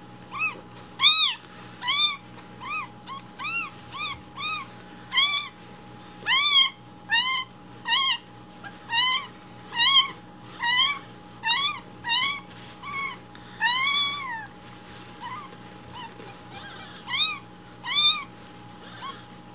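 Newborn kitten mewing loudly and over and over, short high cries that rise and fall, about one or two a second, easing off for a couple of seconds before two last cries near the end.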